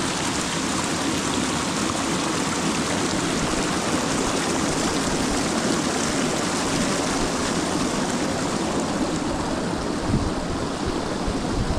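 A steady, even rush of running water, with a few low bumps near the end.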